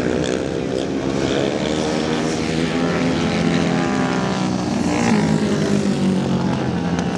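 Flat-track racing motorcycle engines running hard on a dirt oval, the engine note rising and falling as the bikes go through the turn.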